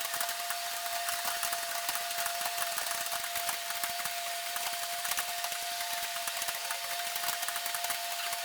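Many computer keyboards clattering at once as a room of students types a timed typing test, a dense, irregular stream of key clicks. A steady thin tone hums underneath.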